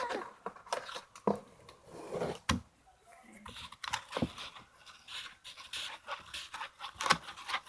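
Stick stirring slime made of glue and Tide laundry detergent in a bowl: irregular sticky scraping and clicking.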